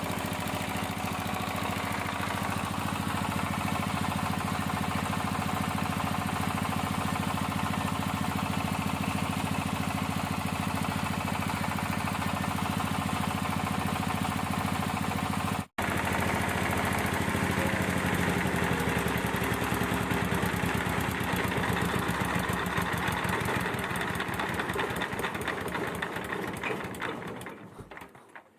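Small diesel engine of an odong-odong kiddie-ride cart running steadily. There is a momentary dropout a little past halfway, and near the end the sound fades away.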